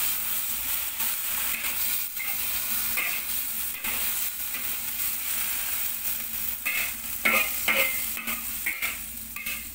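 Vegetables sizzling in a hot wok while a metal spatula scrapes and tosses them, in repeated strokes over a steady frying hiss. The scraping is loudest about seven seconds in.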